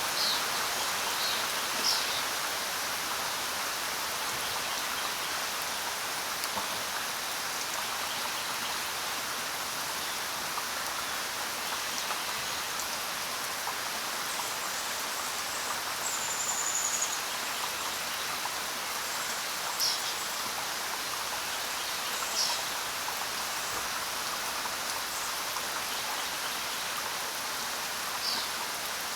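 Steady rain falling on the ground, an even patter. A few brief high chirps come through it now and then.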